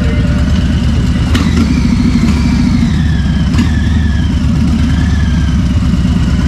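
Harley-Davidson V-twin motorcycle engine idling loudly and steadily.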